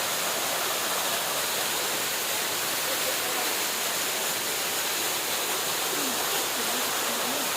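Waterfall's water rushing in a steady, unbroken roar of white noise.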